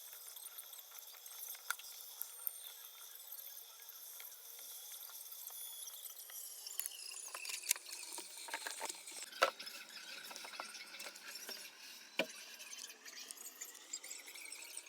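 Electric arc welding: a steady crackling sizzle with many small sharp pops and a few louder ones near the middle.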